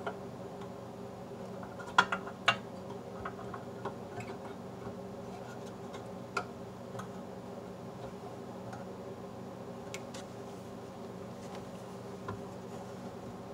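Sharp clicks and taps of hands handling the parts of a Super Technicolor 580 projector's casing, two loud clicks close together about two seconds in and a few lighter ones after, over a steady low hum.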